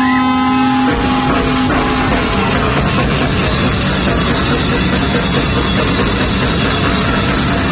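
Loud live heavy-metal band. A held, ringing distorted guitar note sounds for about a second, then the full band crashes in with dense, heavily distorted guitars, bass and pounding drums.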